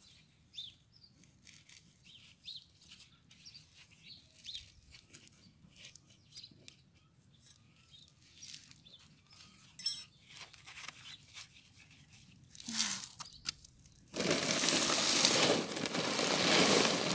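Light clicks of small gravel stones being spread by a gloved hand, then, about fourteen seconds in, a loud continuous crinkling and rustling as the plastic 25 kg gravel sack is handled.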